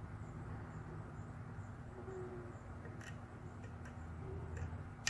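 A few faint, sharp metallic clicks of a lock pick and tension wrench being worked into a dimple cam lock, the last one louder, over a steady low hum. Two short, faint low hoot-like tones sound in the background.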